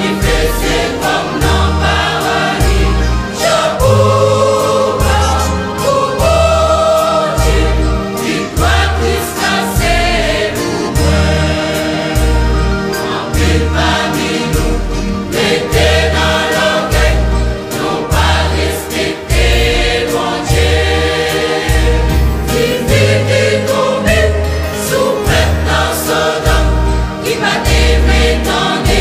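Gospel song in Haitian Creole: a choir of voices singing over a steady bass beat.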